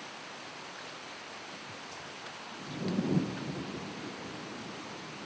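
Steady hiss of rain from a thunderstorm, with a brief low rumble of thunder about three seconds in that swells and fades within about a second.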